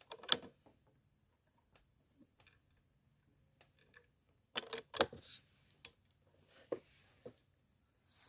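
Scattered light clicks and knocks of handling, with a quick cluster of sharper clicks about halfway through.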